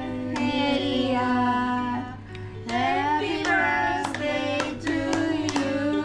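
Several voices singing a birthday song together, with long held notes and a short break about two seconds in.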